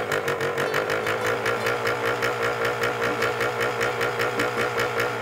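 Motorcycle engine idling with a fast, even beat, steady throughout.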